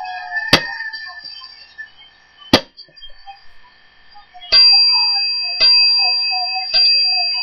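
Two sharp hit sound effects, followed by a ring bell struck three times at even spacing, each ring hanging on and fading: the bell that signals the end of a wrestling match.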